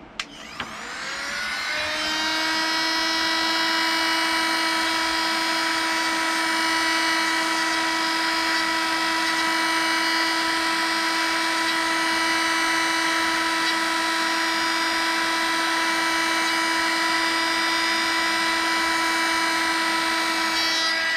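Hot-air gun blowing, spinning up over the first two seconds into a steady whine with a rush of air, then winding down right at the end. It is heating the screen adhesive to soften it before the old digitizer is lifted off.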